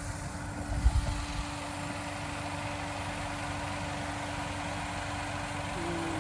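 An engine running steadily, giving a constant even hum, with a brief low bump about a second in.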